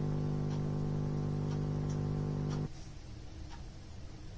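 A steady low hum with overtones that cuts off suddenly about two and a half seconds in, with faint ticks about twice a second underneath.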